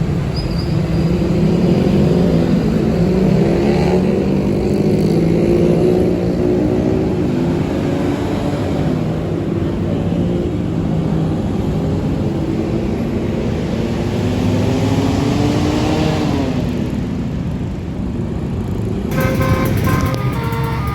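Tour bus's basuri telolet horn playing a long, wavering tune whose pitches slide up and down, over the bus's engine running. About 19 s in the sound cuts abruptly to a different set of higher, held tones.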